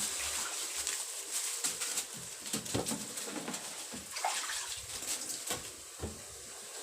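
Water sloshing and splashing with many short, irregular slaps, as harvested catfish thrash in shallow water.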